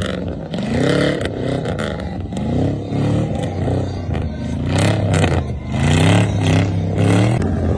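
Off-road 4x4 SUV engine revving hard in repeated surges, rising and falling about once a second as it is driven over rough dirt under heavy throttle, with scattered clattering.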